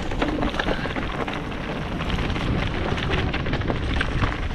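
Mountain bike riding along a dirt singletrack strewn with dry leaves: tyres crunching over leaves and stones with many small rattles and clicks, over a steady low rumble of wind on the microphone.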